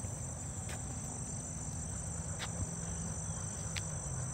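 Steady high-pitched chorus of insects trilling in prairie grass, a continuous even drone, with a low rumble underneath and three faint short ticks.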